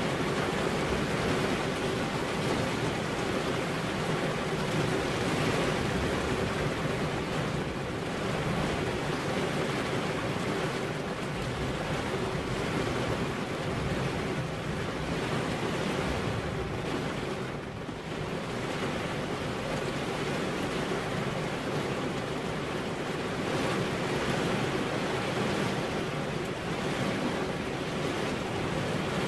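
Rain falling steadily, an even hiss that eases briefly a little after halfway through.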